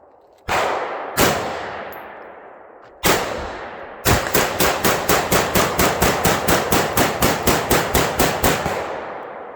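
Gunshots: three separate shots, each ringing out in a long echoing tail, then a rapid string of about twenty shots at roughly four to five a second, which stops shortly before the end.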